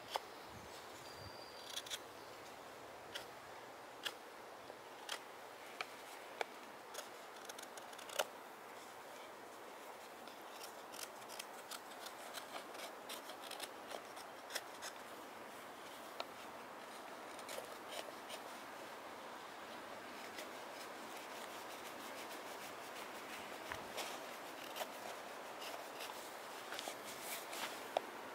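Carving knife shaving a birch wood kuksa cup: a string of short, crisp cuts with faint scraping between them, sparse at first and coming quicker and closer together after about ten seconds.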